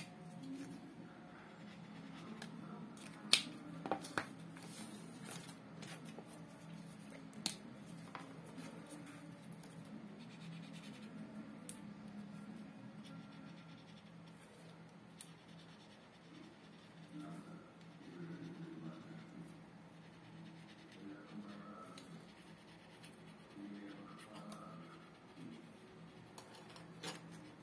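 Highlighter marker tips scratching and rubbing on paper as small shapes are coloured in, with a few sharp clicks in the first eight seconds, the loudest about three seconds in, over a steady low hum.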